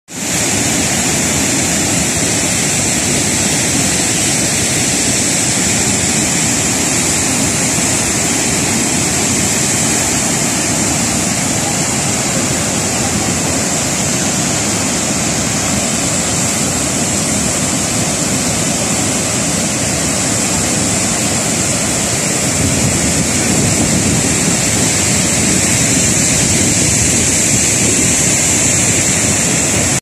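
Broad waterfall in heavy flow, many white-water strands pouring over a rock ledge into a churning pool: a loud, steady rush of falling water.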